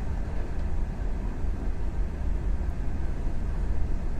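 Steady rumble of a moving passenger train heard from inside a carriage, deep and even, with no distinct clacks or other events.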